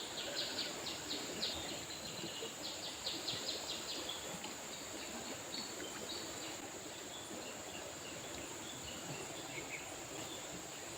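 River water flowing steadily under a constant high insect drone. A bird chirps in two quick runs of short notes within the first four seconds.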